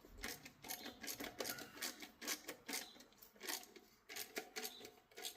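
An uneven run of sharp metallic clicks and taps, a few a second, from hand tools at work on the engine.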